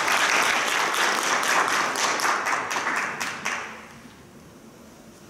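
Audience applauding, thinning to a few last separate claps and dying away about three and a half seconds in.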